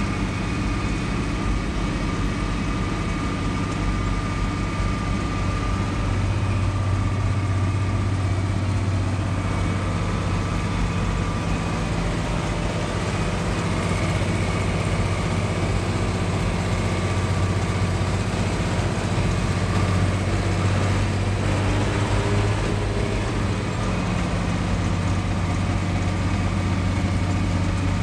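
Tractor engine running steadily as the tractor drives along the road, heard from inside the cab, with a low, even hum throughout.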